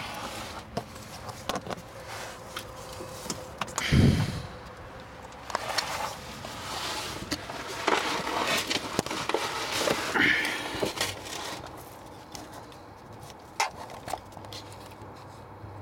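Rustling, scraping and clicks of a person shifting about under a car with a handheld camera, with one loud thump about four seconds in; the sounds thin out near the end.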